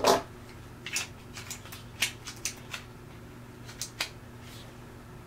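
Sharp metallic click, then a run of lighter clicks and clacks from a Smith & Wesson SW22 Victory .22 pistol being handled while it is cleared and checked empty.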